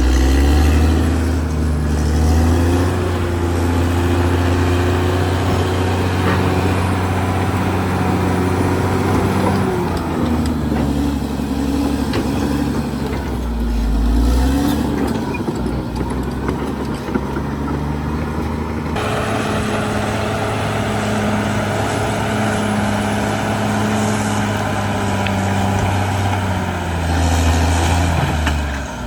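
Caterpillar D6R XL bulldozer's diesel engine running under working load, its note dipping and rising again several times as the load changes.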